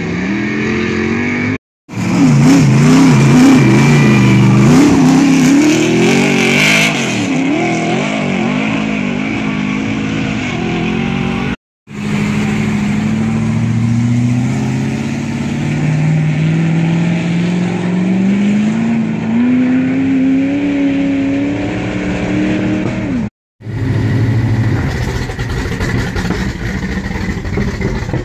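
Race cars accelerating hard up a gravel hill-climb road, heard as several separate passes. In the first the engine revs rise and fall quickly, and in the second the revs climb steadily for about ten seconds.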